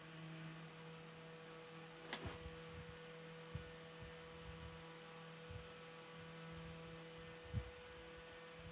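Mini desk fan running, its electric motor giving a steady low hum, with a single sharp click about two seconds in.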